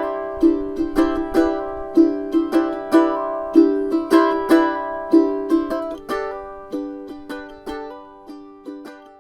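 Music: a plucked-string melody with notes about twice a second, each ringing and decaying, thinning out and fading near the end.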